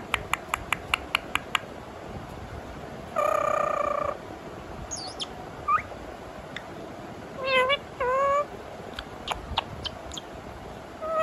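Indian ringneck parakeet imitating a cat: about six quick clicks a second for the first second and a half, then one held meow-like "miaon" call of about a second. A falling whistle, a short rising chirp and two short meow-like calls follow around the eight-second mark.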